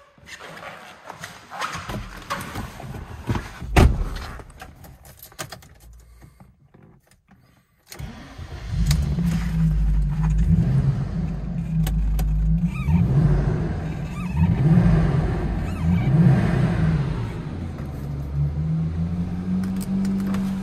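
Clicks and rustles of handling in a car cabin, with one loud thump about four seconds in. About eight seconds in, the Audi S6's turbocharged 2.2-litre 20-valve five-cylinder engine starts suddenly and keeps running steadily, its pitch rising slightly near the end.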